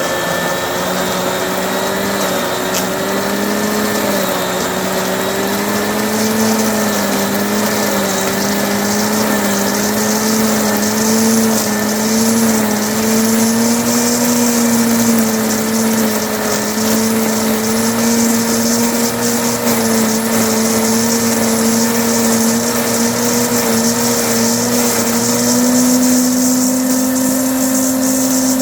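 Sun Joe electric leaf mulcher running steadily while shredding hay, its motor hum wavering slightly in pitch and rising a little near the end.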